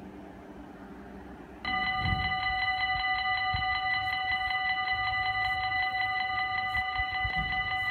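Faint low hum of an approaching VIRMm electric train. About 1.7 s in it gives way abruptly to a railway level-crossing bell: a loud, rapid, even electronic ringing that carries on steadily.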